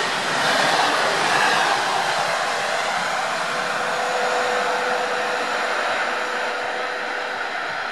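InterCity passenger coaches passing at speed and running away down the line: a steady rush of wheel and rail noise that slowly fades, with a faint steady hum in the middle.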